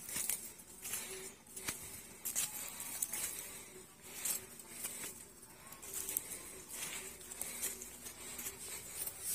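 Footsteps crunching and squelching unevenly over wet ground covered in dry fallen leaves, about one or two steps a second. Behind them a dove coos faintly now and then.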